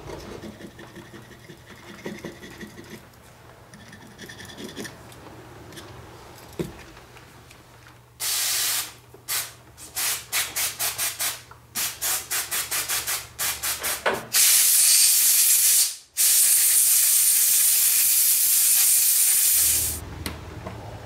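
Aerosol carburetor cleaner sprayed through its straw, hissing: after quiet handling of small carburetor parts, a rapid run of short squirts, then two long sprays of a few seconds each with a brief break between them.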